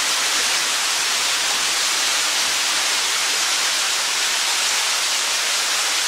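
Small waterfall pouring into a shallow rock pool: a steady rushing hiss of falling water.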